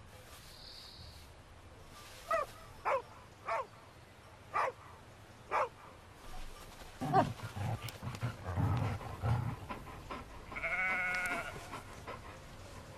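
Carpathian Shepherd Dogs giving five short, sharp barks, then low growling while they wrestle in play. A longer wavering call follows near the end.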